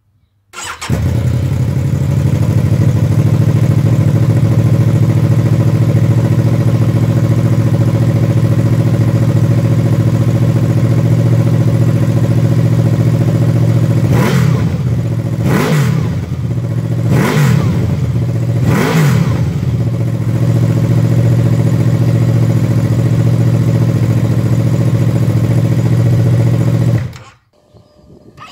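Honda VFR800F's V4 engine idling steadily through an SC Project Conico silencer with the dB killer fitted. Midway it is revved four times in quick succession, each blip rising and dropping back to idle.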